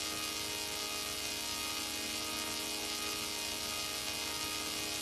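Steady electronic hum and hiss, a stack of unchanging tones over even static, holding at one level.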